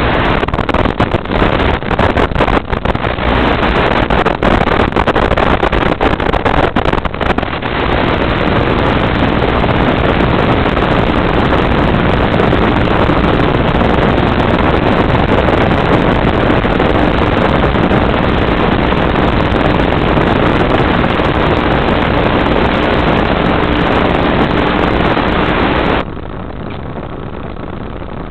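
Onboard sound of an RC plane in flight: harsh rushing noise of air and the electric motor and propeller, with a faint steady hum, broken by crackling dropouts in the first several seconds. The sound drops suddenly quieter near the end.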